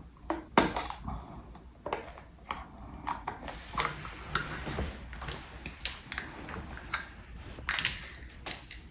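A sealed honey pot being poked and worked open by hand, giving irregular sharp clicks, taps and crinkling rustles of its packaging.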